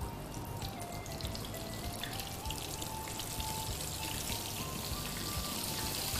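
Flour-coated fish fillet pieces frying in a deep pot of hot oil: a dense crackling sizzle that grows a little louder as more pieces go in. Soft background music with a simple melody plays underneath.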